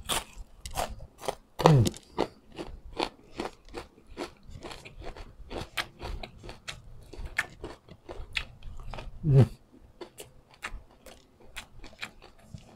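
A person chewing crispy fried daing (dried salted fish) with many small, crisp crunches. Two short falling hums from the eater come about two seconds in and again about nine seconds in.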